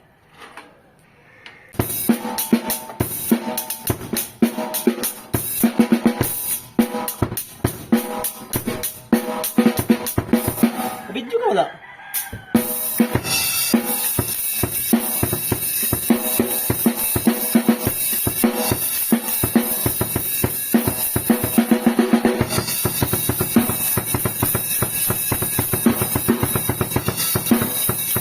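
Drum kit played, its snare fitted with a new Evans head. Dense snare strokes and fills start about two seconds in. From about halfway there is a steady beat with cymbals ringing continuously over it, and a bass drum.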